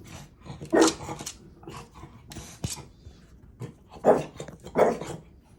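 French bulldog barking in short separate barks: a loud one about a second in, a few softer ones, then two more loud barks near the end.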